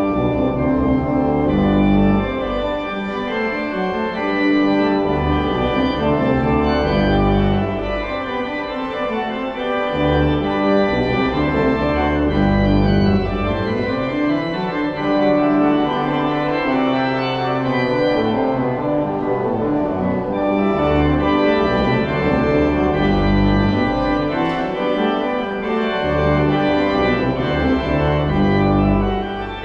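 Church organ playing the postlude after the dismissal: loud sustained chords over moving bass notes.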